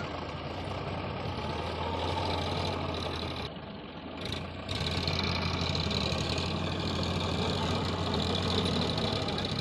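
Heavy diesel engine running steadily, dipping briefly a little past three and a half seconds and then running louder from about five seconds in.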